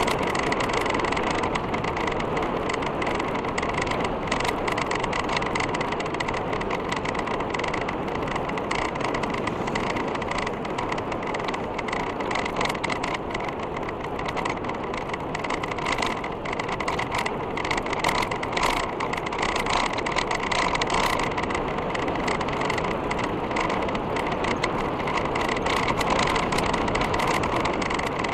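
Mountain bike riding along a paved road, heard from a camera mounted on the bike: a steady rush of tyre and wind noise with the bike rattling and ticking over the road surface.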